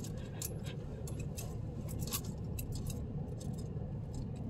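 Steady low rumble of a car driving slowly, heard from inside the cabin, with scattered light clicks and ticks several times a second.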